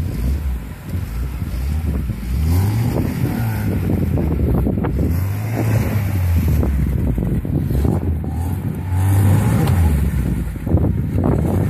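Lada Niva engine revving as the four-wheel-drive crosses a muddy, water-filled ditch, its note rising and falling several times under load.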